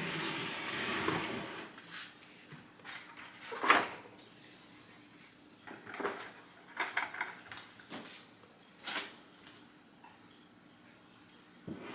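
Scattered knocks and clunks of things being handled, the loudest about four seconds in and a few more close together in the middle.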